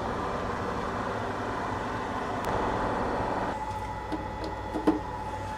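A steady mechanical drone stops abruptly about three and a half seconds in. A few light clicks and knocks follow over a faint electrical hum.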